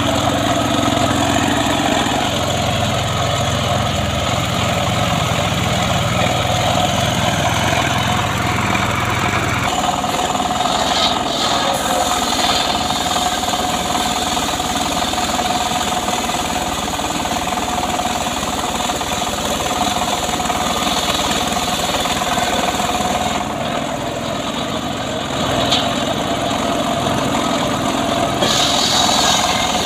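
Engine-driven saw running steadily; about ten seconds in, its low rumble drops away and a steady mid-pitched whine carries on.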